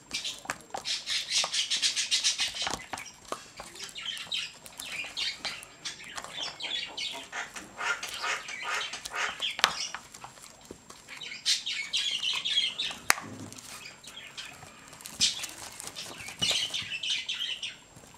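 A stirrer scraping and clicking fast against the sides of a plastic cup as a glue-based slime mixture is stirred. It comes in several bursts of rapid ticking scrapes with short pauses between them.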